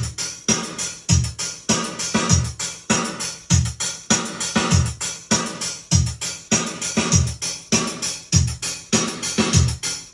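Electronic keyboard playing a built-in drum-machine rhythm: a steady beat of kick drum and hi-hat, with keyboard notes over it.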